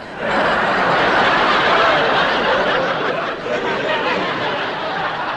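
A large audience laughing, setting in suddenly and loud at first, then slowly easing off.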